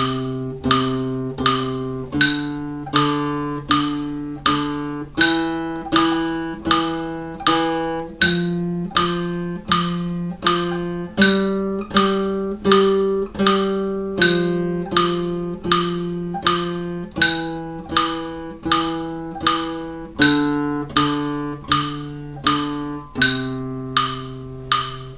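Classical guitar playing a slow, even line of single plucked notes, one per metronome beat at about four notes every three seconds, moving among the notes C, D, E, F and G and often repeating a note before changing. A metronome ticks along with the notes.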